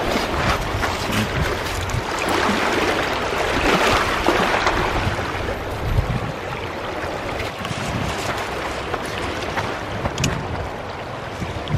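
Small waves washing over a rocky, pebbly shore, one wash swelling about three to four seconds in, with wind rumbling on the microphone.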